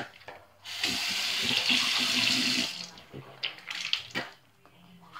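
Bathroom sink tap running for about two seconds, starting suddenly about a second in, followed by a few short clicks.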